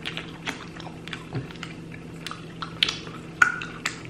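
Close-up chewing of sticky candy: irregular wet smacks and mouth clicks, several a second, over a steady low hum.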